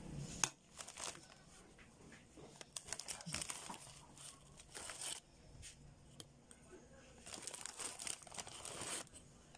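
Plastic wrapper of a pack of graham crackers crinkling in several short bursts as crackers are pulled out of it, with a sharp click about half a second in.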